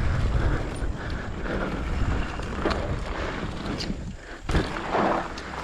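Mountain bike riding over a dirt trail: a steady rumble and rattle with wind noise on the microphone, and a few sharp knocks. The noise dips briefly about four seconds in, then picks up again.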